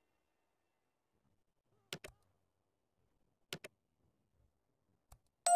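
Silence broken by short sharp clicks: a pair about two seconds in, another pair about three and a half seconds in, and a faint single click just after five seconds. Right at the end a bright chime with several ringing pitches begins.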